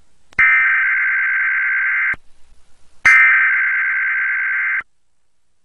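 Emergency broadcast alert tones: two loud, steady electronic data bursts, each a little under two seconds long, with a gap of about a second between them.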